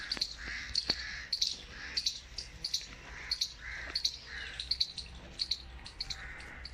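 Small birds chirping in short, high calls, repeated irregularly about twice a second, over a faint low hum.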